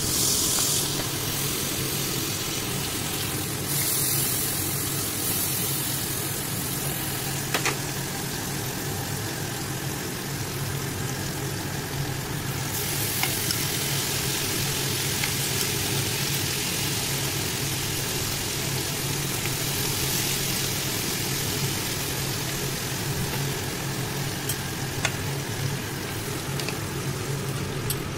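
Shrimp sizzling in foaming butter in a nonstick frying pan, over a steady low hum. A few light clicks come from a wooden spatula stirring the shrimp.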